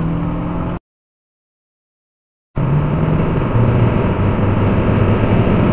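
Steady road and engine drone heard from inside a Mercedes-Benz car cruising at highway speed. About a second in, the audio drops to dead silence for under two seconds, then the drone resumes.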